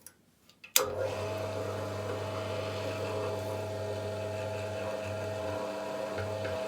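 Electric drill switched on with a click about a second in, then its motor running steadily at constant speed, drilling pilot holes in an aluminium rod.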